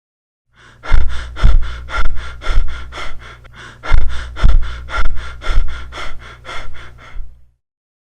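Loud snoring, a rasping breath repeated about twice a second over a steady low drone, starting about half a second in and cutting off shortly before the end.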